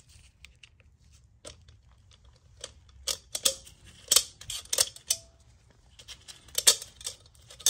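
Sharp metal clicks and clinks, a few leaving a short ringing note, as a tool works a snap ring loose inside a ZF 8HP55 automatic transmission. The clicks are sparse and faint at first and grow louder and more frequent about three seconds in.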